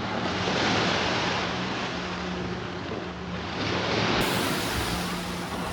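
Waves breaking on a beach, the surf swelling twice about three seconds apart, with a faint steady hum underneath.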